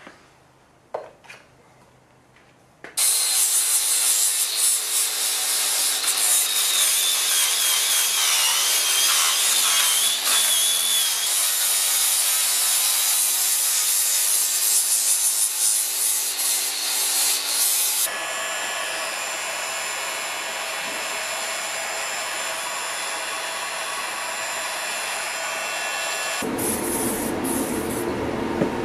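Angle grinder grinding the end of a red steel cylinder. It starts about three seconds in after a few faint knocks and runs loud and steady with a wavering high whine for about fifteen seconds. It then gives way to a quieter, steady machine noise and, near the end, a low steady hum.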